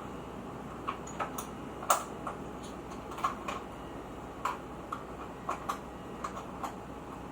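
Irregular light metallic clicks and taps of tools and motorcycle front-fork parts being handled during a fork oil change, over a steady background hiss; the sharpest tap comes about two seconds in.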